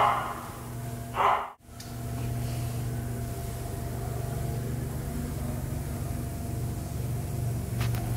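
A dog barking: one bark right at the start and another about a second in. After a cut, a steady low hum runs on, such as kennel ventilation machinery.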